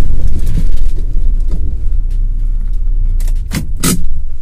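Off-road SUV driving slowly over a rough dirt track, heard from inside the vehicle as a loud, steady low rumble. Two short knocks come near the end as it eases off.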